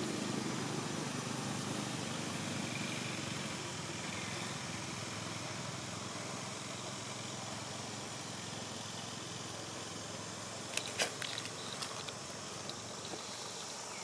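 Steady outdoor background noise, with a brief cluster of short sharp clicks and crackles about eleven seconds in.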